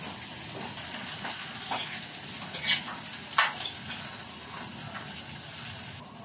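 Food sizzling steadily as it fries in a pan, with a few sharp clicks over it, the loudest about three and a half seconds in.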